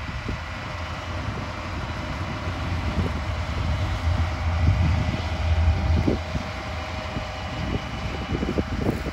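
John Deere 672GP motor grader's diesel engine running under load as the blade cuts and pushes dirt: a steady low rumble that swells about four to six seconds in.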